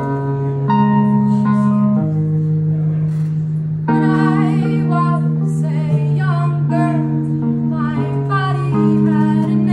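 Wurlitzer electric piano playing held chords, with a woman singing over it from about four seconds in.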